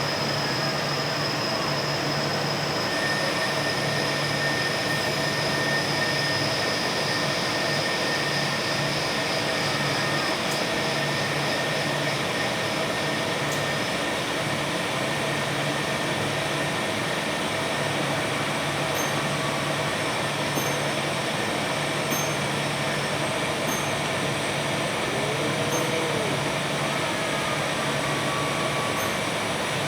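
Steady machine-shop noise from an automated machining cell, with a low hum that cuts in and out every second or two and several steady whining tones. Faint light ticks repeat about every second and a half in the second half.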